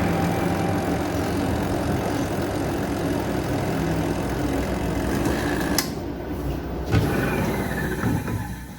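Twin-tub washing machine's spin dryer, fitted with a replacement motor, running with a steady mechanical hum. Two sharp knocks come about six and seven seconds in, and the hum fades near the end.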